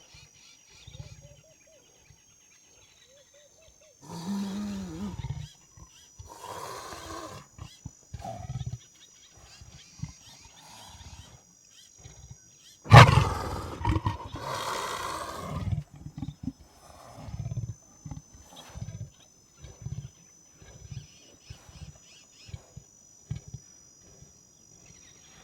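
Leopard calling: a series of rough, growling roars, the loudest breaking out suddenly about thirteen seconds in, followed by a run of short, rhythmic rasping grunts.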